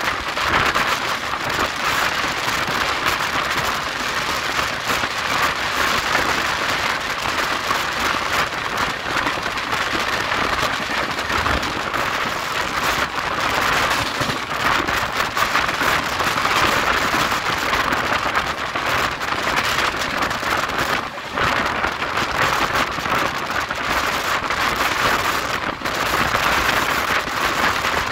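Rush of wind and wheel-and-rail rolling noise from the open doorway of a passenger coach running at speed: a steady, loud roar of noise, dipping briefly twice in the last third.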